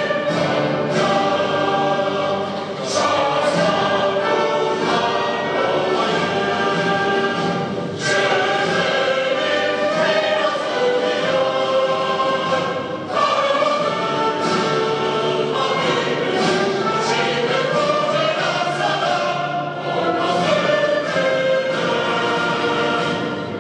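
A national anthem sung by a choir with orchestra, continuous and steady in level.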